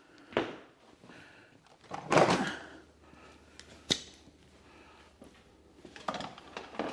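Workshop handling noises as hardware is searched through for shorter bolts: a knock, a short scraping rattle about two seconds in, a sharp click a second or two later, and a few more knocks near the end.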